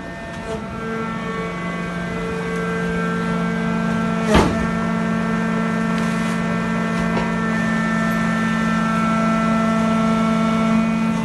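Packing press for wood sawdust and chips running with a steady hum. It gives a single sharp clank about four seconds in.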